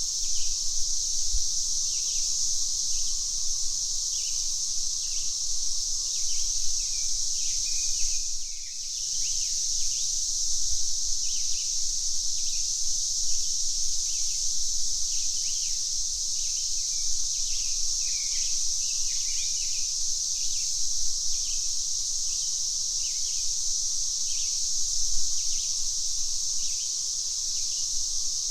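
Cicadas droning in a steady high-pitched chorus, with many short bird chirps underneath. The whole sound dips briefly about eight seconds in.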